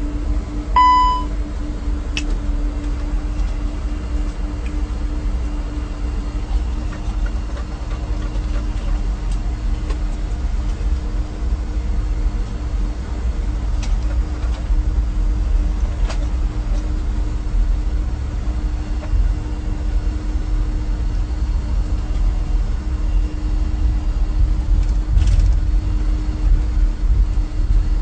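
Airbus A320 cockpit interior: a steady low rumble of engines and airflow with a constant hum, growing slightly louder near the end. A short electronic beep sounds about a second in, and a few sharp clicks come at intervals.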